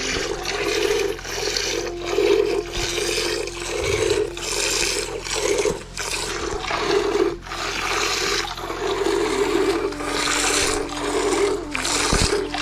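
Repeated noisy strokes, each about half a second long and a little over one a second, with a faint steady tone underneath.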